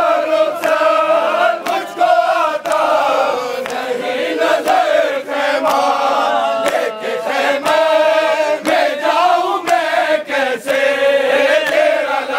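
A crowd of men chanting a noha, a Shia mourning lament, in unison after a lead reciter, with sharp beats about once a second keeping time.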